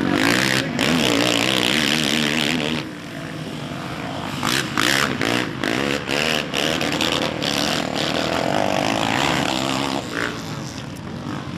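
Racing quad engines revving hard, their pitch wavering up and down, with a series of quick throttle cuts and pick-ups in the middle.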